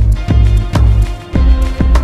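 Background music with a steady beat, about two beats a second, over heavy bass.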